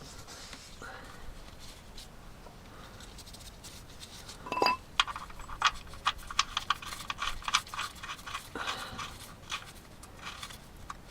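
A single short metallic clink that rings briefly, about four seconds in, followed by a run of irregular light clicks and taps. These are the sounds of metal tools and parts being handled under the car during an engine oil change.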